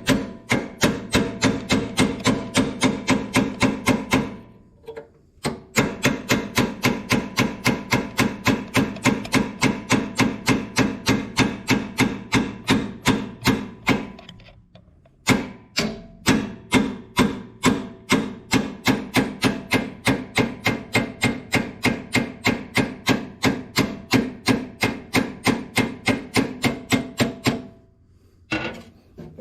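Hammer striking a pin punch to drive the roll pin out of a Ford 545A backhoe's shuttle-shift shaft: rapid, even metal-on-metal blows about three a second, each with a ringing tone. The blows come in three long runs with two brief pauses and stop shortly before the end.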